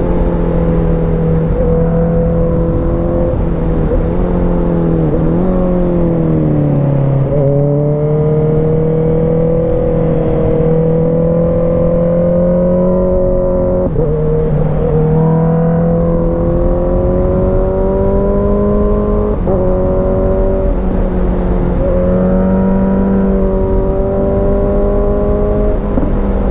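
Sport motorcycle engine under way, heard from the bike's onboard camera with wind noise. The engine note rises steadily, then drops sharply several times as the rider changes gear.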